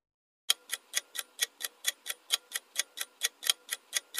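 Clock-ticking sound effect serving as a quiz countdown timer: sharp, evenly spaced ticks about four a second, starting about half a second in.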